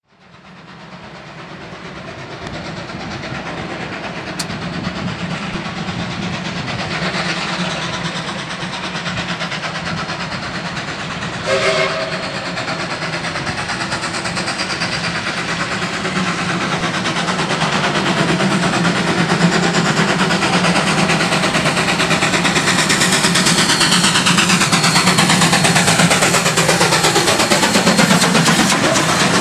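DD17 class steam locomotive running and coming by, growing steadily louder over the stretch, with a brief whistle about twelve seconds in and a falling pitch in the last few seconds as it passes close.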